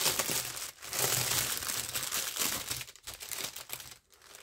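Plastic film crinkling as a wrapped bundle of small bags of diamond-painting stones is handled. It is dense for about three seconds, then thins out to a few scattered crackles near the end.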